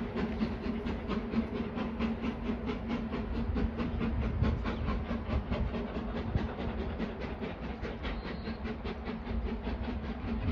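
Four-cylinder GWR Castle-class steam locomotive 7029 Clun Castle working hard as it pulls a train away, with rapid, even exhaust beats that fade slightly as it draws off.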